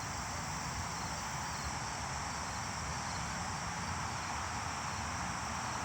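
Steady outdoor insect chorus, crickets, with an even hiss underneath and no change throughout.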